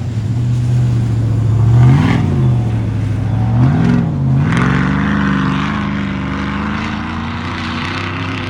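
Off-road race vehicle's engine running steadily, revved briefly twice, then accelerating away and holding a higher pitch.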